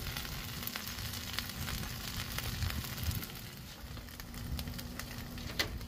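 Cheese-skirted taco frying on a Blackstone flat-top griddle: a steady sizzle with small scattered crackles as the shredded cheese crisps around the tortilla.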